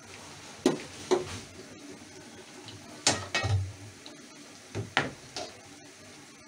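Potato fries sizzling in hot oil in a metal kadai, with several clinks and knocks of a metal utensil against the pan in three groups: about a second in, about three seconds in, and near five seconds.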